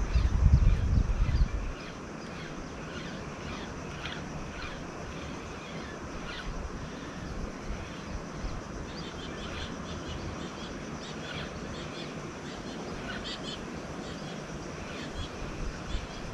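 Outdoor riverside ambience with scattered short bird chirps throughout. A loud low rumble on the microphone fills the first two seconds.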